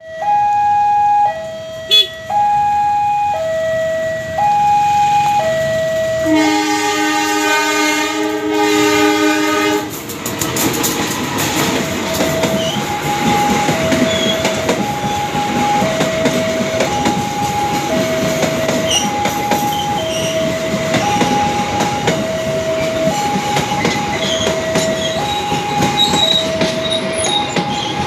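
Railway level-crossing warning alarm sounding two alternating tones, high and low, switching about once a second. About six seconds in a train horn blows one long multi-note blast lasting about three seconds. A train then passes with wheel rumble and rail clatter while the alarm keeps sounding.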